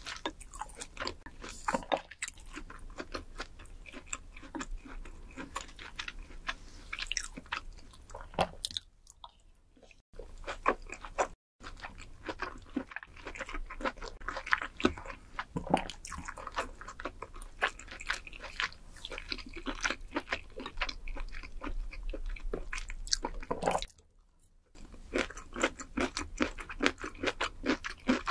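Close-miked chewing: a steady run of wet mouth smacks and small clicks as a mouthful is chewed, broken by short quiet gaps about nine, eleven and twenty-four seconds in.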